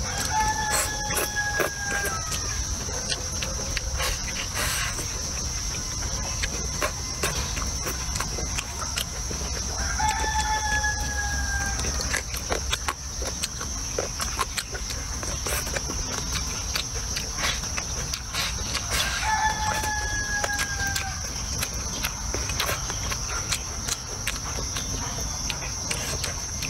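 A rooster crowing three times, each crow lasting a little under two seconds and sagging slightly in pitch at the end, about nine seconds apart. A steady high insect buzz and short chewing clicks run underneath.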